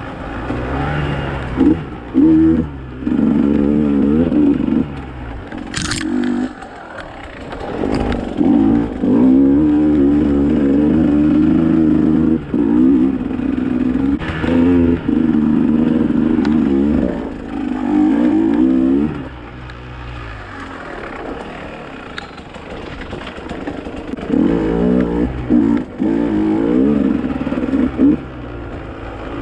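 Dirt bike engine under way, revving up and dropping back in repeated throttle bursts, with a quieter stretch at low revs about two-thirds of the way through. A single sharp knock comes about six seconds in.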